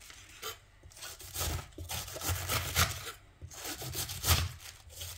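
A knife shredding a head of cabbage into thin strips on a wooden cutting board: repeated, uneven crisp cutting strokes through the crunchy leaves onto the board.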